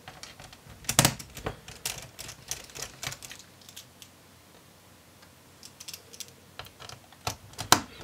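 Small Phillips screwdriver undoing the screws that hold a laptop battery in place: light, irregular clicks and taps of the metal tip in the screw heads and against the plastic chassis. They come in two runs, with a pause of about two seconds in the middle.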